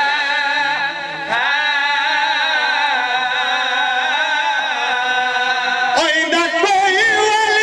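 A man's voice chanting a slow, drawn-out elegy (marsiya-style lament) over a microphone and PA, in long wavering held notes. A new phrase starts about a second in and another about six seconds in.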